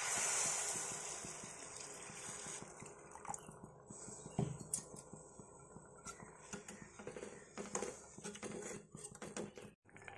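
Water poured into a steel pan of hot fried masala, splashing and hissing, fading over the first two seconds or so. Then a metal spatula stirring the thin gravy, with scattered clicks and scrapes against the pan.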